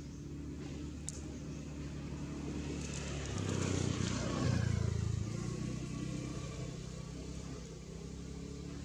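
A motor vehicle's engine running steadily. It grows louder from about three and a half seconds in, peaks near five seconds and fades again, as a vehicle passing close does.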